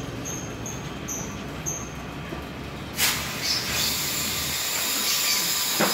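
Toyota D-4D diesel engine running with a steady low rumble. About three seconds in, a loud steady hiss starts suddenly over it.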